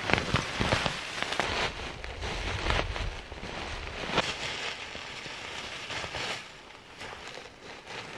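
Dry leaf litter and moss rustling and crackling as they are pulled up by gloved hands and pushed into a sack. The crackles come thick for the first four seconds or so, then thin out.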